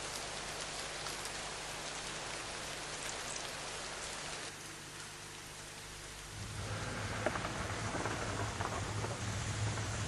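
Steady rain falling, an even hiss of drops on hard wet ground. About six seconds in, a low steady hum comes in under the rain and the sound grows louder.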